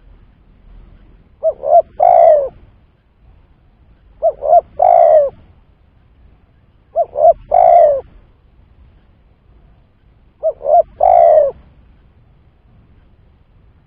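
Spotted dove (tekukur) calling: four phrases about three seconds apart, each two short coos followed by a longer coo that falls away at the end.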